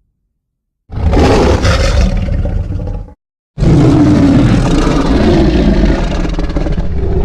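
Baragon's roar, the kaiju sound effect from Toho's Godzilla films: a loud roar of about two seconds starting about a second in, then a second, longer roar after a short pause.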